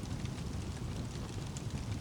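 Wood fire burning in a fireplace: a steady low rumble of flames with a few faint, scattered crackles.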